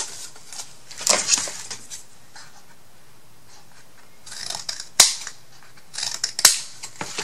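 Scissors cutting chipboard and handling paper: a few rustling snips with sharp clicks in between, the loudest click about five seconds in.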